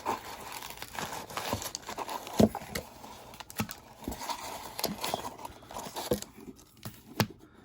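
Packaging being rummaged through by hand: crinkling and rustling of wrapped card packs and loose foam packing peanuts, with scattered irregular taps and clicks. One handling knock stands out about two and a half seconds in, and the rustling dies down near the end.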